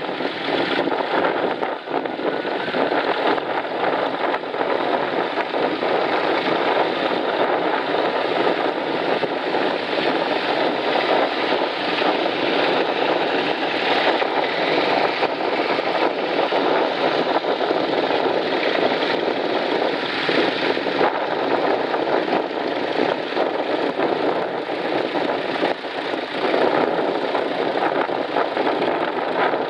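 Engines of vintage tractors, including small Fordsons and Nuffields, running steadily as the tractors drive past one after another on a gravel road.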